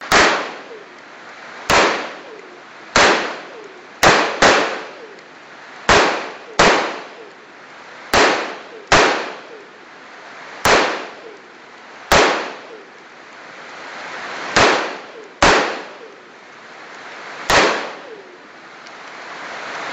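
Colt M4 short-barrelled rifle in 5.56 mm, fitted with a Troy Industries Claymore muzzle brake, fired in single shots: about fourteen sharp cracks at uneven intervals, some in quick pairs, each trailing off in a short echo.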